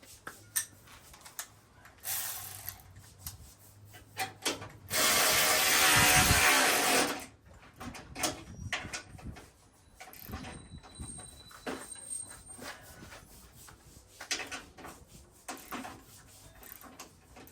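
Power drill running for about two seconds, driving in a bolt during body panel fitting, with scattered clicks and knocks of parts being handled before and after.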